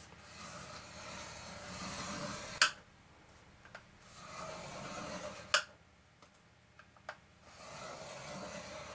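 Scoring stylus drawn along the grooves of a scoring board through grey cardstock, pressing score lines into the card: three scraping strokes, each ending in a sharp click.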